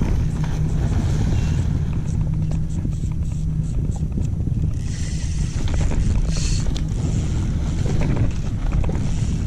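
Wind buffeting the microphone on an open boat, a steady low rumble throughout, with a low hum that cuts out about four seconds in.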